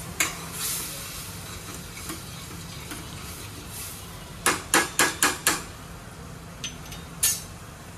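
Steel ladle stirring pav bhaji masala frying in oil in a stainless steel pan, over a steady sizzle, as the masala cooks until the oil separates. About halfway through the ladle knocks five times in quick succession on the pan, with one more knock near the end.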